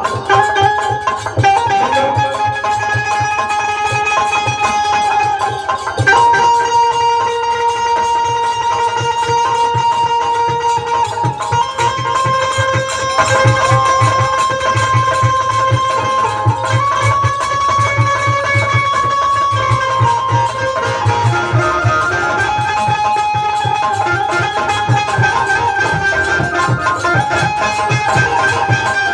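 Bulbul tarang (Indian banjo) playing a slow melody of long held notes, its strings struck while the keys set the pitch, over a steady dholak drum beat.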